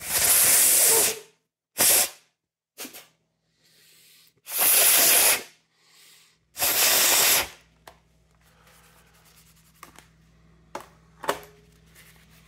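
Five hissing bursts of air, the longest about a second, as air is blown out in short puffs. The last four seconds hold a few faint clicks and taps from handling.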